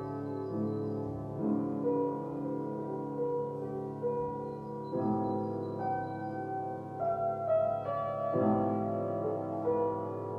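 Background piano music: slow, sustained chords that change every few seconds.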